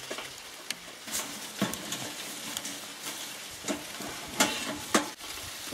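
Handling noise from a small solar water pump being assembled: scattered clicks and knocks as a hose clamp is tightened onto its outlet and the pump is fitted into a metal casing, over a steady hiss. The two loudest knocks come about four and five seconds in.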